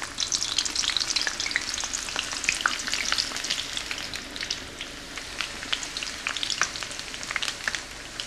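Onion rings frying in hot oil in a wok over high heat: dense sizzling and crackling that thins a little in the second half, with a spatula moving the rings near the end.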